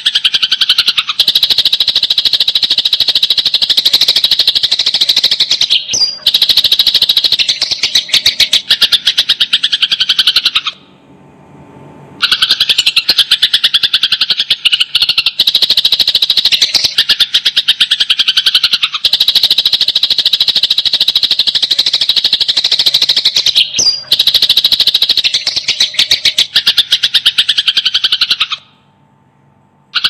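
Sparrows chirping in long, dense runs of rapid sharp chirps, many a second: the agitated chatter of fighting sparrows. The runs break off briefly twice, about 11 seconds in and near the end.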